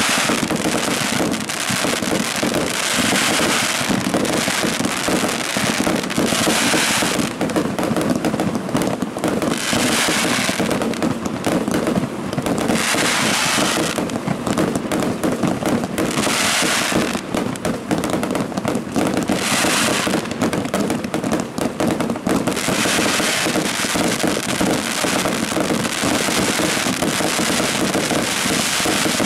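Fireworks display firing a continuous rapid barrage of aerial shells, with bursts and crackling overlapping without a pause. Stretches of hissing crackle swell and fade every few seconds.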